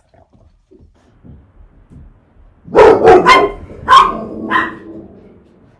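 A dog barking: a quick burst of four or five loud barks, starting almost three seconds in.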